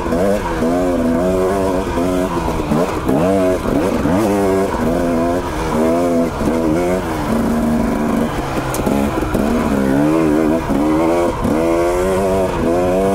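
Dirt bike engine under way on a trail, its revs rising and falling every second or so with constant throttle changes, briefly held steady about eight seconds in.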